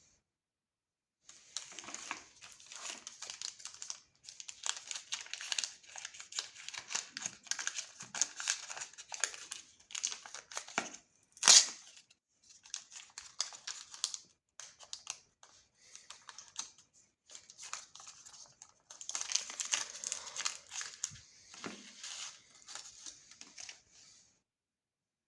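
Plastic chocolate bar wrappers being crinkled and torn open, in stretches of crackling with short pauses between them, and one sharp, louder crack about halfway through.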